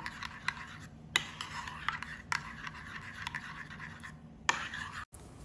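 Metal spoon stirring thick tomato pizza sauce in a ceramic bowl, scraping against the bowl with a few sharp clinks.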